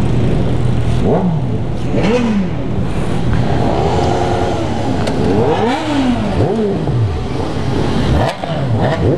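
Several motorcycle engines revving over and over, their pitches rising and falling and crossing one another, over a steady low idle.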